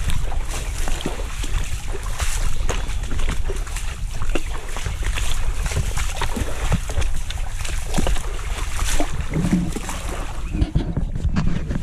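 Water sloshing and splashing in irregular bursts, over a steady low wind rumble on the microphone.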